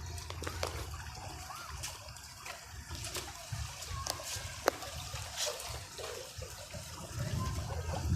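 Rainwater running and trickling after a heavy downpour, with scattered drips and splashes and one sharp click about four and a half seconds in.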